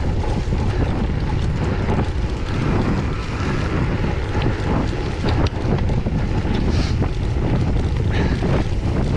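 Wind buffeting the microphone of a camera on a bicycle ridden at race speed, a steady low rumble, with a few sharp ticks partway through.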